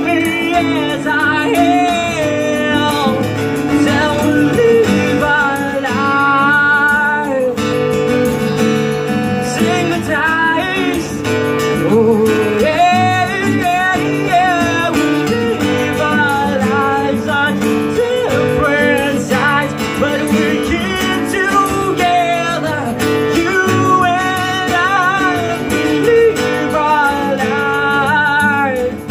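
Live acoustic band: a man sings a melody over two strummed guitars, with a cajon keeping the beat.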